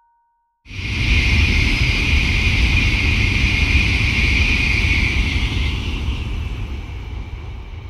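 Shinkansen high-speed train passing at speed: a loud rushing noise that starts suddenly under a second in, with a strong hiss over a low rumble, the hiss fading away over the last couple of seconds as the train recedes.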